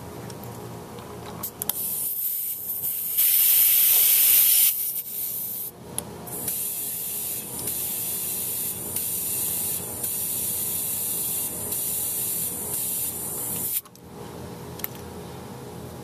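Compressed air hissing through a hand-held inflator chuck into a golf cart tire's valve stem, topping up a tire that was running a little low. The hiss starts about two seconds in, is loudest for a second or so, then runs steady and stops abruptly near the end.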